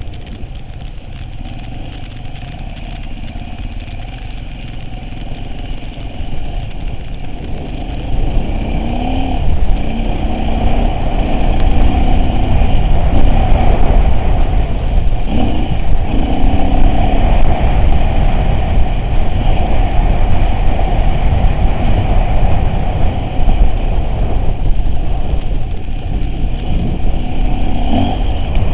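Off-road vehicle engine running while driving over rough ground, with a heavy low rumble that gets louder about eight seconds in.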